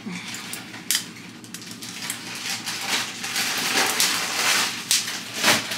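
Kitchen clatter: scattered clicks and clinks of handled dishes and jars, a stretch of rustling and crunching in the middle, and a sharp knock near the end.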